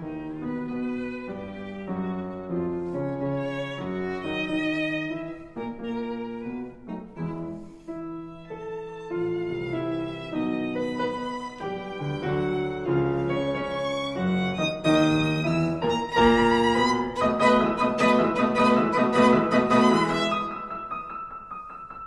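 Instrumental background music led by a violin playing a slow melody over bowed strings, growing fuller and louder for the last few seconds.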